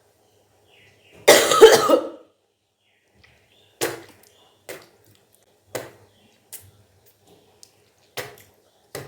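A person retching and vomiting up water during kunjal kriya, the yogic stomach-cleansing practice. There is one loud heave about a second in, then six short coughs.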